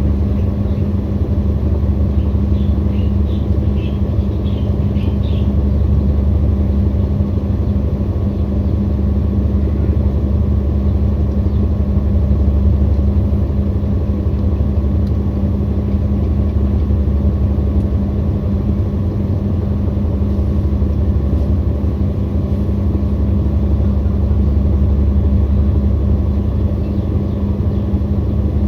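Washing machine spinning: a steady low rumble with a constant hum.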